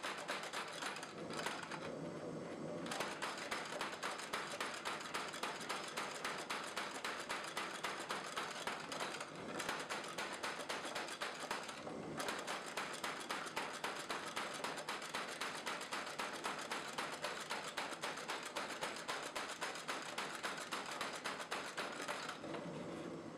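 Homemade wooden beam power hammer running, its hammer head striking in a rapid, steady train of knocks, with short pauses about a second and a half in and again a little before the middle.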